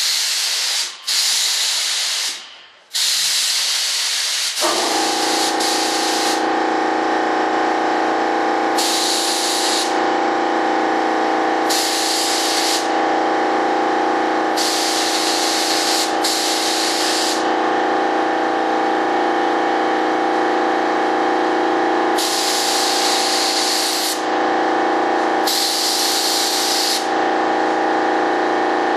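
Spray gun hissing in repeated bursts of one to two seconds as PartAll Film #10 PVA mold release is sprayed in thin coats. About five seconds in, a steady machine hum starts and runs on under the bursts.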